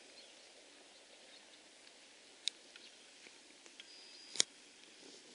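Sparse sharp clicks and light ticks from a dressage horse moving off from a halt and walking on grass, over faint outdoor background noise. The loudest click comes about four seconds in.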